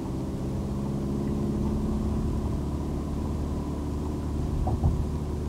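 Car engine running steadily in third gear, heard from inside the cabin with road noise, as the car drives up a motorway slip road.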